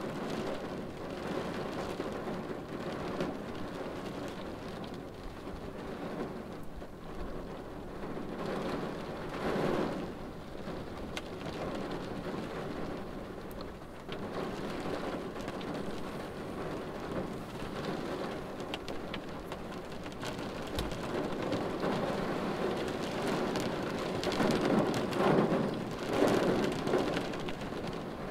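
Steady rain falling on a car windshield, heard from inside the car, swelling louder about ten seconds in and again near the end.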